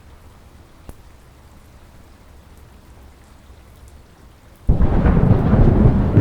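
Thunderstorm: soft, steady rain, then near the end a sudden loud clap of thunder that keeps rumbling.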